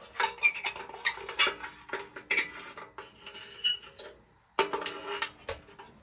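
Quartz heating tube and its end caps being twisted and pulled out of a radiant heater's sheet-metal reflector housing: a run of clicks, clinks and scrapes of metal and glass, a short pause, then a few more clicks.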